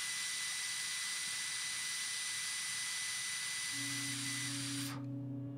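A long, steady breath blown into a handheld breathalyzer: a hiss with a faint high tone through it that cuts off suddenly near the end. A low steady hum comes in about three and a half seconds in.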